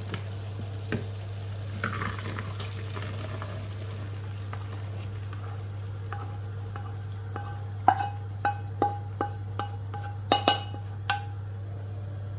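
Boiled peanuts being tipped from a frying pan into a plastic colander while a wooden spatula scrapes them out. A run of sharp knocks with a short ring follows in the last few seconds as the spatula strikes the metal pan about eight times. A steady low hum runs underneath.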